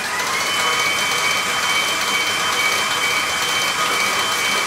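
Electric bowl-lift stand mixer running with its paddle attachment, beating creamed butter and sugar as eggs are added. Its motor whine rises briefly as it comes up to speed at the start, then holds steady.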